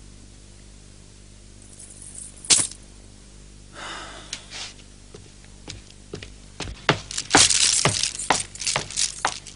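Footsteps of hard-soled shoes on a stone floor: a run of sharp clicks and knocks that starts a few seconds in and grows quicker and louder towards the end, after a single sharp click about two and a half seconds in.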